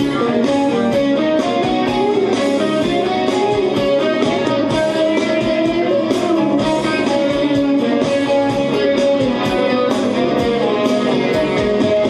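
Stratocaster-style electric guitar playing a lead solo line, quick changing single notes high on the neck, over steady backing music with a regular beat.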